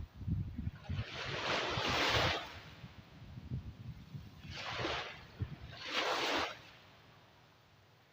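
Big ocean waves breaking as surf: three surges of rushing water, the first the longest, over a low rumble, then the sea settles quieter for the last second or so.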